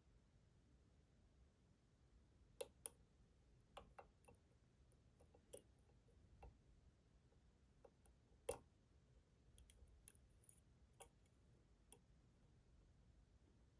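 Faint, scattered clicks of a lock pick working the pins inside a Schlage Primus Everest lock cylinder, irregularly spaced, with the sharpest click about eight and a half seconds in.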